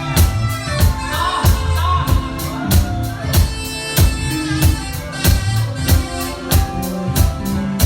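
Live soul/R&B band playing a steady groove: a drum kit keeping a regular beat under a bass line, with a melody line over the top.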